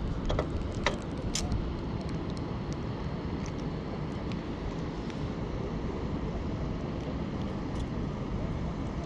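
Steady low rumble of wind buffeting the microphone, with a few small clicks near the start from the rod and line being handled.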